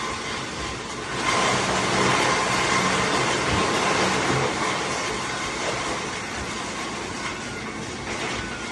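Industrial shredding machine running: a steady, dense mechanical noise with faint whining tones, growing louder about a second in.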